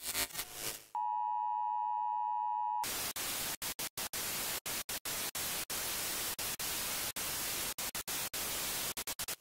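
Television static sound effect of a logo intro: a short glitchy burst, then a steady beep-like test tone for almost two seconds. A loud hiss of static follows, cut by many brief dropouts like a bad tape signal.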